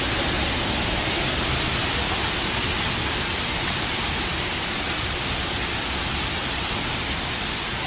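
Heavy hail coming down hard: a dense, steady hiss of countless stones striking, with no single hits standing out.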